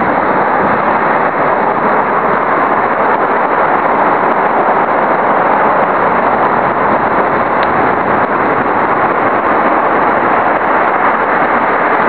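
Loud, steady wind noise rushing over the microphone of a camera on a moving push bike.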